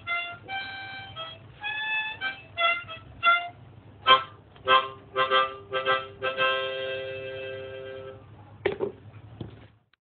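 Harmonica played hands-free, a string of short notes and phrases, then several short chords and one long held chord, fading out with a few brief puffs and stopping just before the end.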